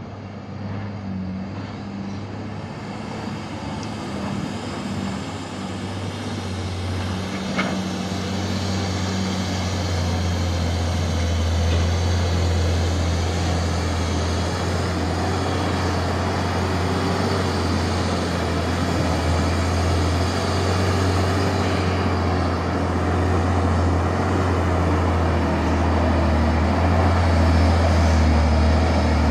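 Shacman F2000 dump truck's diesel engine pulling a full load up out of a quarry pit, a steady low drone that grows louder as the truck comes closer.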